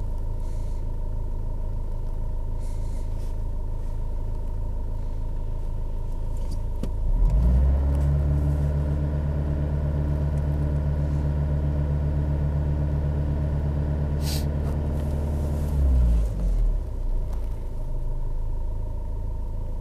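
Renault Laguna's 2-litre diesel engine running at idle. A little after a third of the way in, the revs rise and are held steady for about eight seconds, then drop back to idle.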